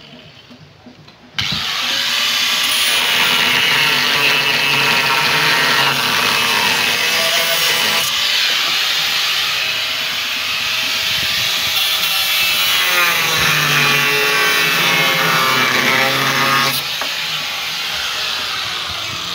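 Handheld power tool cutting into wood, its motor pitch wavering as it bites. It starts abruptly and goes quieter for the last couple of seconds.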